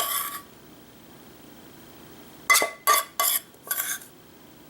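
A metal spoon clinking and scraping against dishes while spooning batter: one sharp clink at the start, then four quick clinks with a short ring about two and a half to four seconds in.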